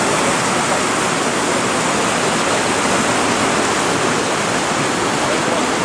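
Steady rush of whitewater churning down a kayak course.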